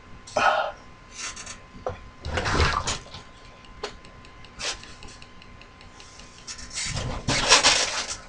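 Workshop handling noises: tools and small metal parts being picked up and set down, with a few scattered clinks, knocks and rustles, the longest at about two and a half seconds in and near the end.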